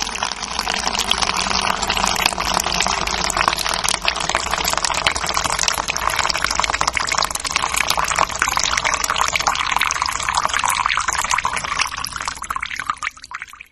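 A stream of urine splashing into the water of a toilet bowl, running steadily, then weakening and breaking up in the last second or so before it stops.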